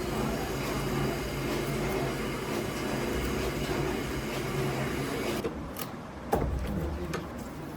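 A workshop machine's electric motor running with a steady hum, cutting off suddenly about five and a half seconds in; a few sharp clicks and one louder knock follow.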